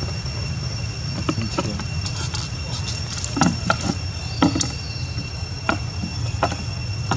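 Insects droning with two steady high tones over a low background rumble, broken by scattered short sharp clicks and rustles, the loudest about halfway through.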